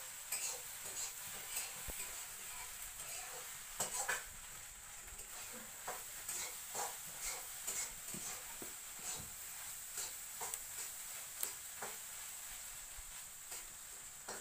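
Irregular small clicks and smacks of a toddler eating with the fingers, over a faint steady hiss.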